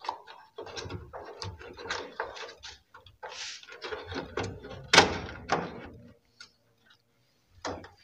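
Irregular plastic clicks, rattles and rustling from hands working the wiring and the plastic pressure switch inside an opened washing machine's top panel, with one sharp knock about five seconds in.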